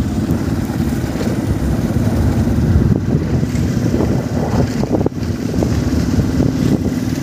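Wind buffeting the phone's microphone as a loud, steady low rumble, with a faint steady hum beneath it.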